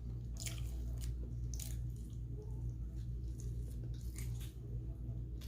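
Close-up chewing of soft food, with a few short wet mouth clicks spread through, over a steady low hum.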